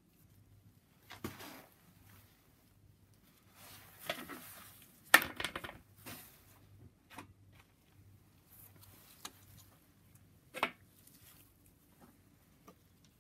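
Ratchet wrench with a torque-angle gauge being worked on an engine bolt during its angle-torque stage, giving a few scattered clicks and clinks with some rustling; the sharpest click comes about five seconds in.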